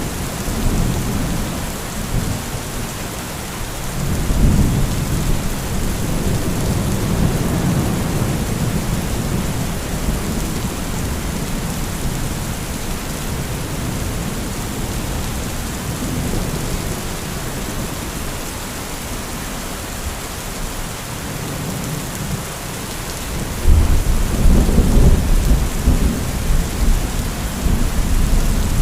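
Heavy rain falling steadily, with low rumbles of thunder. A louder thunder rumble sets in near the end.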